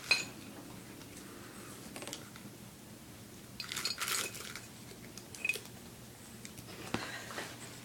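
Candy being pawed at by a cat: scattered light clicks and crinkly rustles, with the busiest cluster about halfway through, over a faint steady hum.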